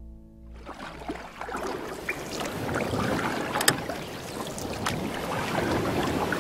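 Water sound effect: a rushing, crackling noise dotted with small drips and splashes. It fades in about half a second in and builds up, with one sharper splash a little past the middle.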